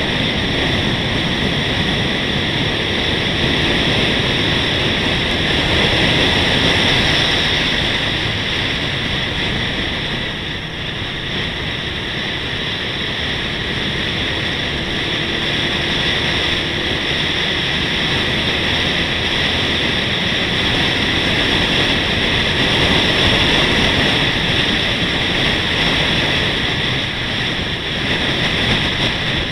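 Steady rush of wind and road noise on an action camera's microphone while it travels along a road, with the running vehicle underneath; it dips slightly about ten seconds in.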